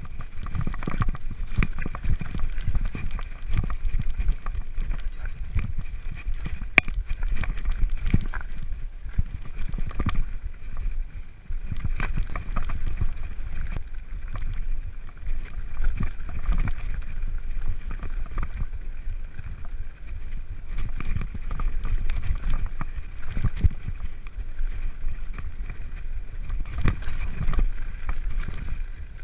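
Mountain bike descending a rocky trail, heard from a camera strapped to the rider's chest: a continuous low rumble of tyres over stones, with frequent knocks and rattles as the bike hits rocks.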